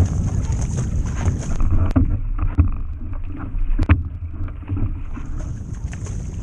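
Water rushing and splashing along a racing surfski's hull as it is paddled, with wind buffeting the microphone and sharp splashes from the paddle strokes, the loudest about two and four seconds in. For a few seconds in the middle the sound turns muffled.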